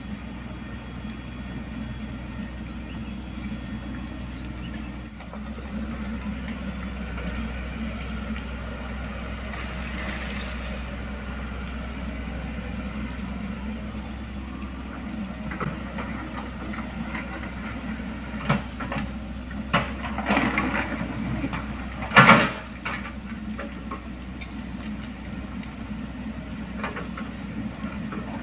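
Diesel engines of a mini excavator and bulldozer running steadily while they spread stone. In the second half come a series of clanks and scrapes of stone and steel, the loudest about two-thirds of the way through.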